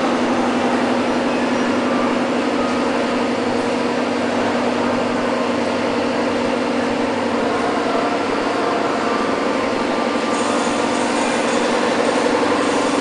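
A steady low mechanical hum over a constant noisy background din, unchanging throughout.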